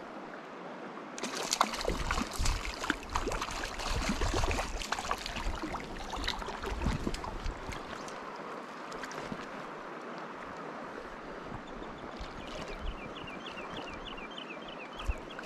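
River water running, with splashing and small sharp knocks through the first half. Near the end a bird calls a rapid series of short high notes, about three or four a second.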